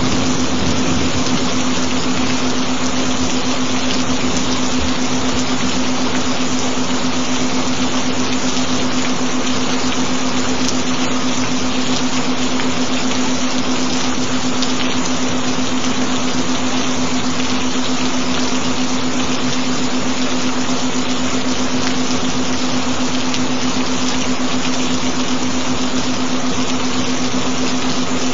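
Steady, even rain with a single low tone held beneath it: a binaural-beat tone.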